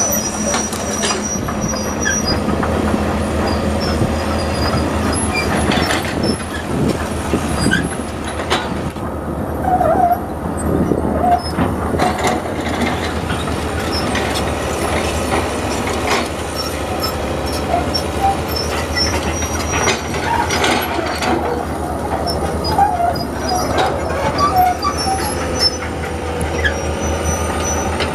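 A hydraulic crawler excavator working: its diesel engine runs steadily under load, with scattered short squeaks and a few knocks from the arm, bucket and tracks.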